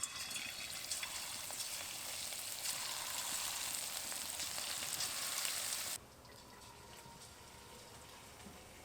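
Cornflour-and-egg coated chicken pieces deep-frying in hot oil in a kadai, sizzling loudly. About six seconds in the sizzle drops suddenly to a much fainter level.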